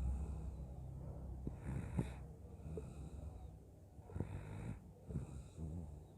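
A person snoring in sleep: slow, wheezy breaths with a light crackle, two of them a couple of seconds apart.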